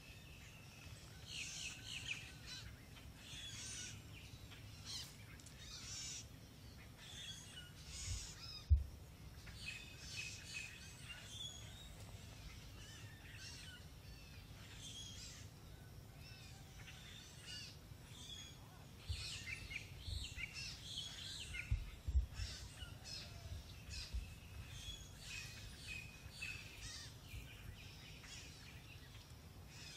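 Wild birds chirping and calling in many short notes, over a steady low rumble. Two dull thumps stand out as the loudest sounds, one about a third of the way through and one about three-quarters of the way through.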